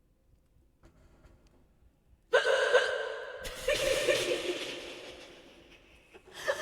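A hiccup and a gasp into a microphone with an echo effect on. The first starts suddenly about two seconds in, the second a second later and slowly trails off in echo, and another starts near the end.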